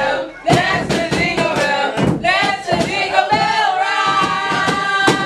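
A group of children singing a camp song together, with several sharp hits in among the singing.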